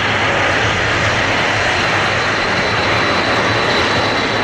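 Boeing 747-400 on approach with gear down, its four Rolls-Royce RB211 turbofans running: a steady, loud jet rumble with a thin, steady high whine over it.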